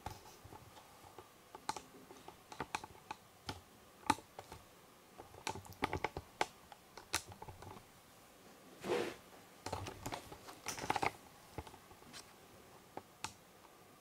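Scattered light clicks at irregular spacing, with two short rustles, one about nine seconds in and one a little later.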